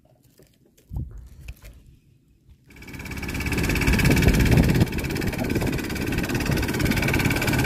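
Small boat's engine starts about two and a half seconds in and then runs steadily, a low rumble with a high whine over it. Before it come a few faint clicks and a thump.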